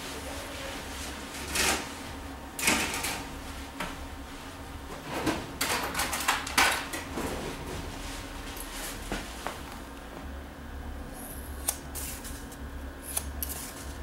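Barber-shop handling noises: a run of short rustles and sharp clicks as tools and hair are handled around the seated customer, densest in the first half, over a steady low hum.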